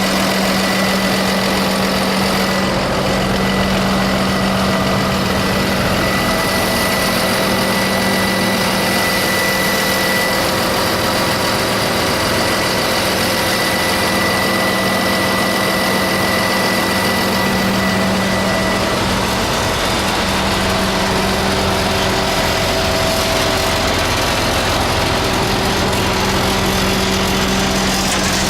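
The 2007 Ford F750 service truck's diesel engine idling steadily, with a constant hum.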